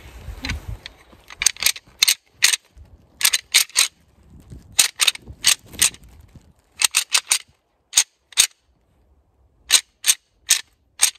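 Sharp clacks of a handheld deer rattling call struck between the palms, mimicking bucks sparring. They come in quick runs of two to four, then as single clacks about half a second apart.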